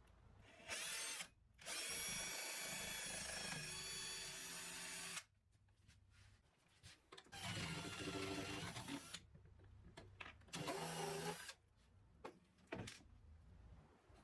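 Power drill running in five separate bursts, the longest about three and a half seconds, with its pitch dropping partway through that run.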